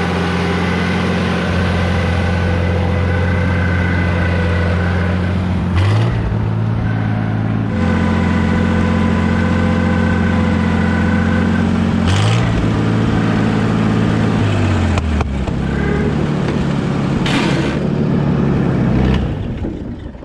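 Power Horse four-wheel-drive farm tractor's engine running, its speed stepping up and down several times, then dying away at the very end. It quits because a wire came off its electric fuel pump.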